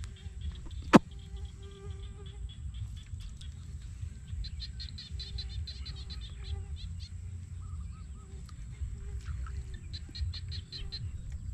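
Birds chirping in quick high runs over a steady low wind rumble on the microphone, with one sharp click about a second in.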